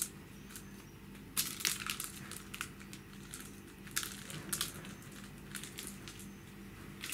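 Kitten scuffling on a hard floor as it bats and wrestles a wand toy: irregular short crinkly scratches and rustles, in bunches about a second and a half in and again about four seconds in, over a faint steady hum.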